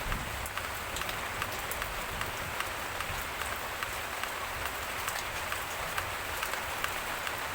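Steady rain falling on surfaces: an even hiss with scattered irregular drop ticks.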